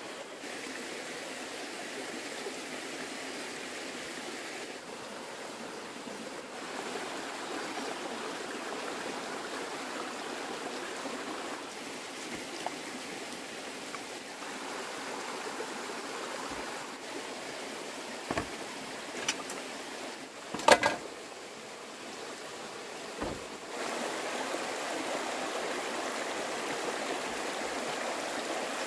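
Steady rush of running water. Near the end there are a few sharp knocks, the loudest a brief clatter about two-thirds of the way through.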